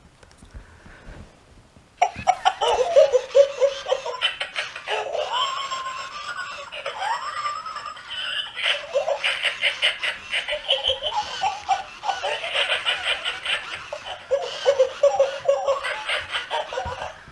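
Plush laughing-dog toy playing its recorded belly laugh: a long run of rapid, rhythmic ha-ha-ha peals rising and falling in pitch, starting about two seconds in and stopping near the end.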